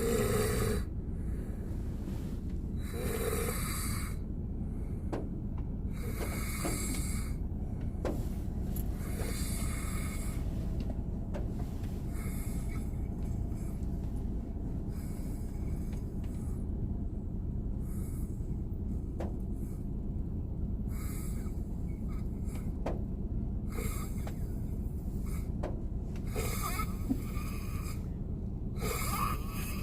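A man snoring while asleep in a car: a hissy snoring breath about every three seconds, with a short snort at the start, over a steady low rumble.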